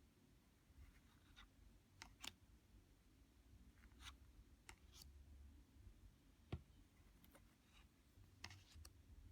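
Tarot cards being handled and flipped through: faint, irregular light clicks and swishes of cardstock, with one sharper tick about six and a half seconds in.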